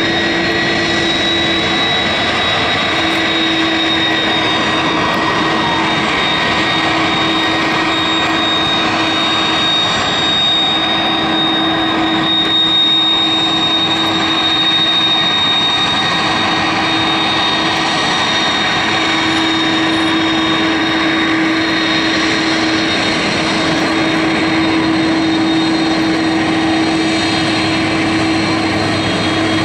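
Turbofan engines of a taxiing Airbus A330-300, the General Electric CF6-80E1s, running steadily at low taxi power. They make an even rush of noise with a steady high-pitched whine.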